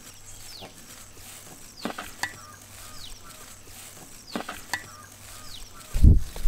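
Spatula folding and scraping thick brownie batter and flour in a large metal pot, with a few sharp scrapes. Short falling bird chirps repeat in the background, and a low thump near the end is the loudest sound.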